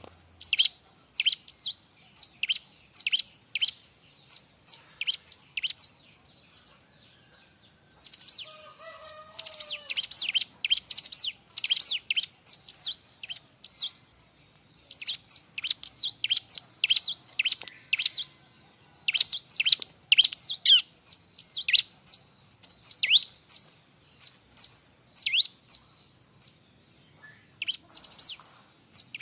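Ciblek (bar-winged prinia) calling busily: sharp, high chirps that each sweep downward, in rapid runs of about two to three a second, broken by short pauses.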